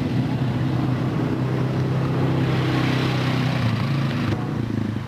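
Several ATV engines running, a steady engine drone with a hiss that builds partway through and changes abruptly about four seconds in.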